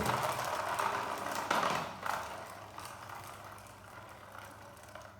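Toy RC cars' small electric motors and plastic gears whirring, with wheels clattering as they race off; the sound is loudest in the first two seconds, then fades as the cars move away.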